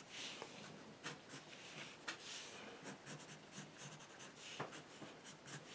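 Pencil scratching on drawing paper in a series of short, faint sketching strokes.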